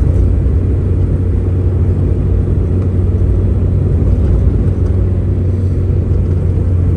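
Steady low rumble of a car driving on a paved road, heard from inside the cabin: engine and tyre noise with a constant low drone.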